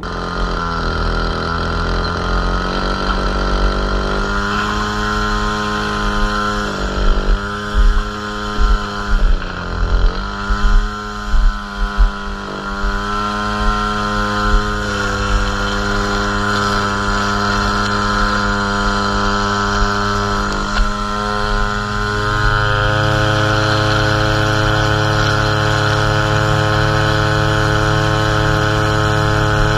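Gas string trimmer engine running at working throttle while edging a sidewalk. Its pitch and loudness dip and swell over and over through the first half, then it runs steadier and settles to a lower, even note about three-quarters of the way in.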